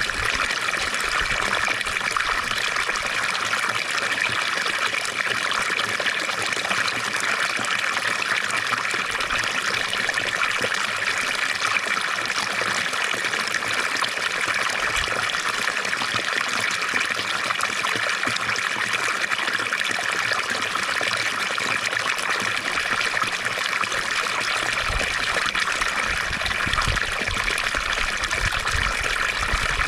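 Water from a fountain splashing and trickling steadily, an even unbroken rush of falling water.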